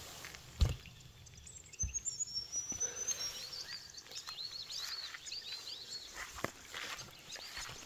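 Small birds chirping and twittering in quick high notes, mixed with scattered footsteps and knocks. The loudest is a thud about half a second in.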